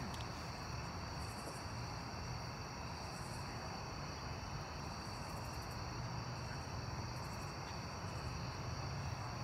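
Crickets trilling steadily in a continuous high chorus, over a low background rumble.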